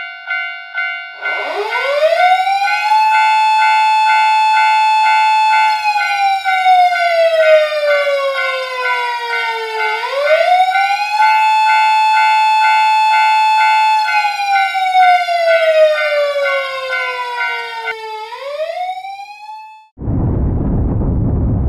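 A railroad crossing signal's repeating electronic bell, joined a second in by a slow wailing emergency-vehicle siren. The siren rises, holds, then slowly falls, twice over, before dying away. Near the end a loud rushing noise starts.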